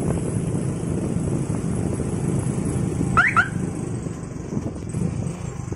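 Motorcycle running along a wet road, a steady engine-and-road hum. About three seconds in, two short rising chirps sound in quick succession.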